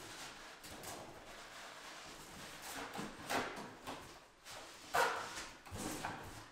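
Styrofoam packing blocks and cardboard being handled in a speaker box: irregular rubbing and scraping of foam against cardboard and the cloth wrapping, with the loudest scrape about five seconds in.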